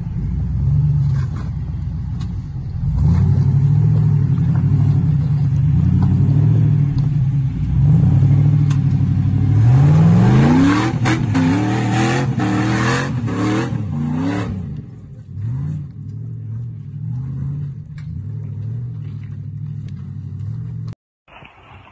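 Jeep rock crawler's engine running under load as it climbs a rock ledge, revving up in several quick rising surges about ten seconds in, then settling back to a lower, steadier run.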